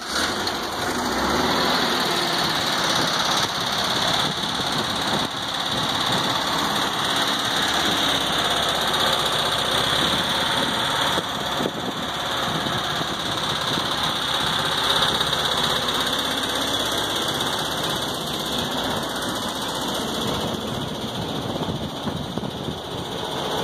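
The refurbished air-cooled flat-four engine of a 1972 Volkswagen Type 2 bus idling steadily.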